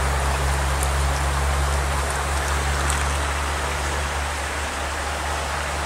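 Shallow creek water running over stones and gravel: a steady rushing hiss with no breaks.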